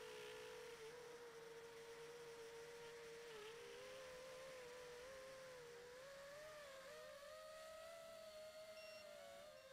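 A 5-inch FPV quadcopter's brushless motors heard from the onboard camera: a faint whine made of several close tones that waver with the throttle, climbing in pitch about two-thirds of the way through and dropping back near the end. A short high beep near the end is the quad's low-voltage alarm, set off by an old 3S 2200mAh LiPo running down.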